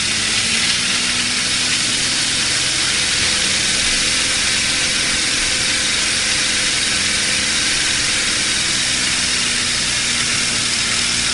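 Car engine idling with one fuel injector unplugged, an injector misfire, under a loud steady hiss that drowns out the engine's low hum.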